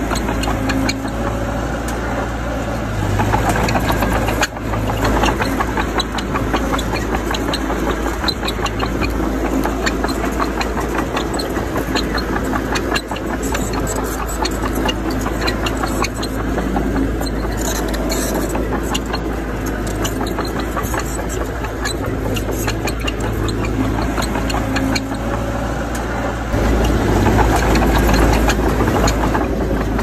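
Diesel engine of earthmoving machinery running steadily under a constant rattle of small clanks. The engine gets louder about three seconds in and again near the end.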